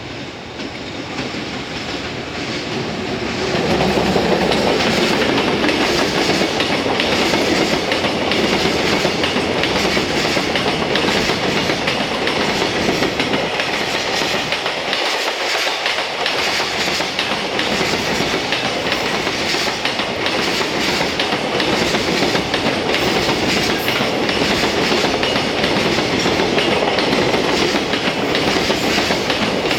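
Freight train hauled by a JR Freight EF210 electric locomotive going by, its wheels clattering steadily over the rail joints. The noise grows over the first few seconds as the train comes close, then stays loud and even as the wagons pass.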